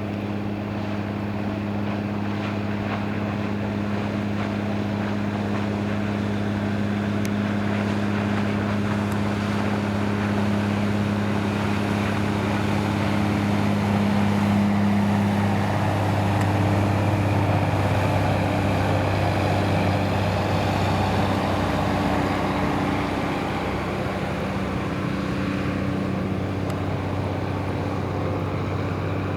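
A boat's 330 PS Mitsubishi S6MB six-cylinder marine diesel running steadily under way, a low drone with water and wind rushing past the hull. The rushing noise swells about halfway through while the engine note holds.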